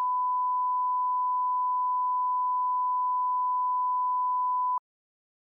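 Steady 1 kHz line-up test tone, the reference tone that goes with colour bars, held at one pitch and cutting off abruptly near the end.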